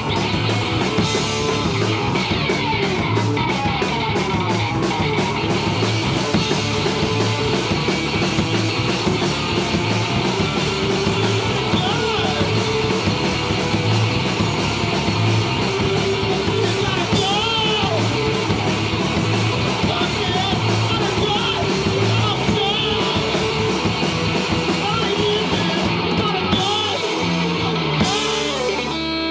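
Live three-piece rock band playing loud, amplified through a PA: electric guitars over a drum kit with a steady beat.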